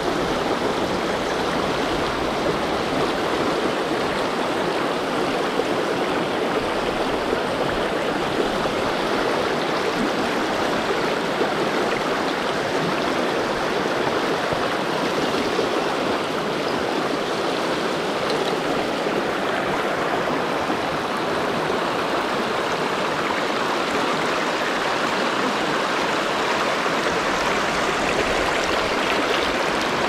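Mountain river water rushing steadily over shallow rocky riffles.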